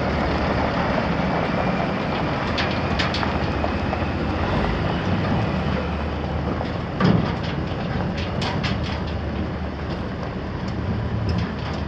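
Caterpillar C12 six-cylinder diesel engine of a dump truck running steadily with a low rumble. Scattered light clicks and rattles are heard over it, and a single dull thump comes about seven seconds in.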